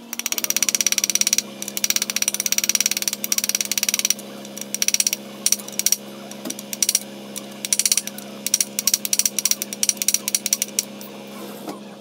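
Socket ratchet wrench clicking rapidly as it turns a bolt on a scooter engine casing, in long runs for the first few seconds and then in shorter bursts with pauses between strokes. A steady low hum runs underneath.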